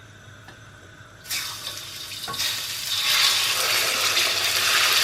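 Marinated chicken breast pieces sizzling in hot oil in a wok, starting about a second in and growing louder, with a single knock partway through.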